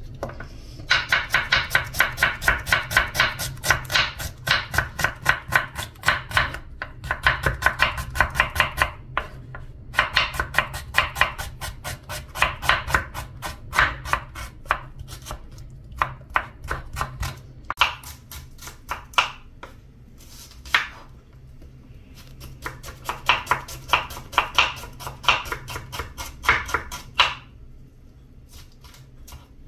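Kitchen knife slicing red onions on a wooden cutting board: quick runs of knife strikes on the board, several a second, with short pauses between runs and sparser strokes midway.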